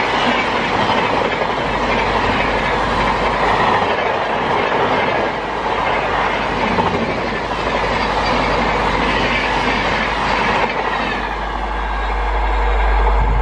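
Express train's passenger coaches running past at speed: a continuous rushing rumble with wheels clattering over the rails.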